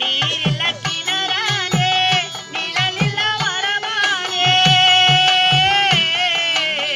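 A singer performing a Tamil stage-drama song, the melody sliding and ornamented, with one long held note about four to six seconds in. Harmonium accompaniment and regular hand-drum beats run beneath, about two a second.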